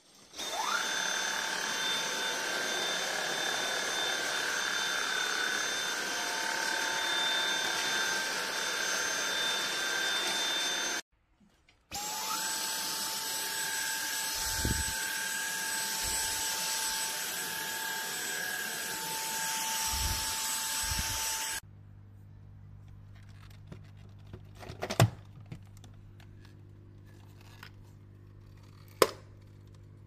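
Dyson-type cordless stick vacuum with a soft-roller floor head switching on with a quick rising whine and running with a steady high whine and rushing air, cutting off after about ten seconds, then starting up again and running for about ten seconds more. After it stops, only a low hum remains, with two sharp clicks.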